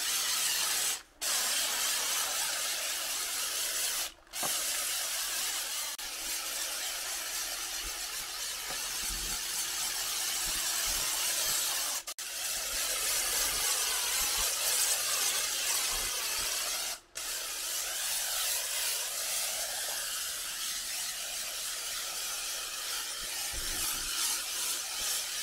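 Pressure-washer wand spraying water onto a foam-covered car: a steady hiss, broken by four brief gaps.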